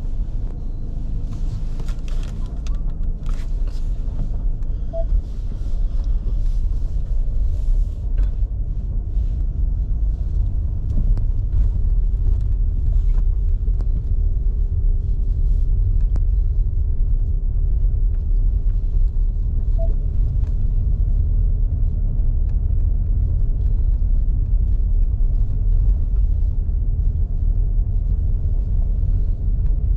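Car driving along a rough country lane, heard from inside the cabin: a steady low rumble of engine and tyres, with scattered clicks and knocks in the first several seconds.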